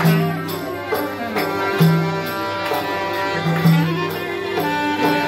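Live Greek folk music: a clarinet plays a melody of held notes over accordion and a steadily beaten hand-held frame drum.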